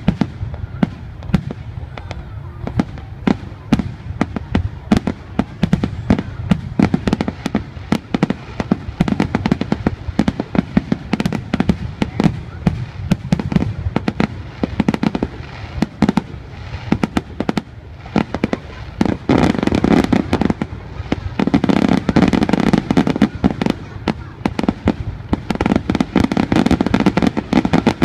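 Fireworks display with aerial shells bursting in a rapid, unbroken run of bangs and crackles. The barrage grows denser and fuller about two-thirds of the way in.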